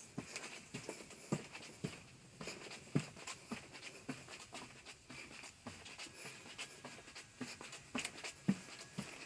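Faint, irregular soft taps and knocks, roughly two a second, over a quiet background hiss.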